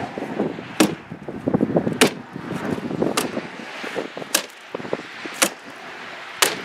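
Hammer tacker stapling roll roofing: six sharp snaps, about one a second, with lighter rustling and tapping between them.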